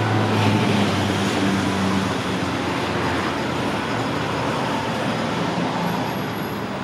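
Alstom Citadis tram rolling slowly past on street track: a steady rumble from wheels and running gear with a low hum from the drive early on, easing slightly as it moves away.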